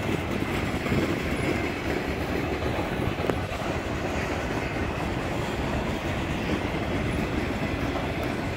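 Freight train cars rolling past close by: a steady rumble of steel wheels on rail with a few scattered clacks.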